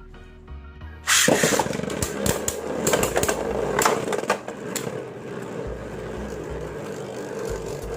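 A Beyblade Burst spinning top is launched about a second in, then whirs and scrapes as it spins across a plastic stadium, with sharp knocks where it strikes the walls.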